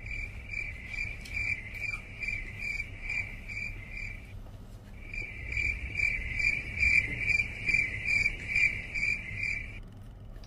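Cricket chirping in quick, regular pulses, about three a second, in two long runs with a short break about four seconds in.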